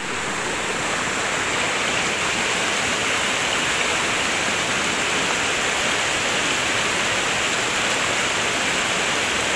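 Waterfall pouring, a steady, even rush of falling water with no change in level.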